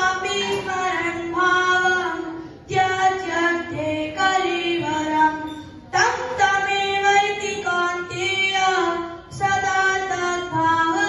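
A boy singing a verse into a microphone, in phrases of about three seconds, each ending on a held note, with a short break before the next.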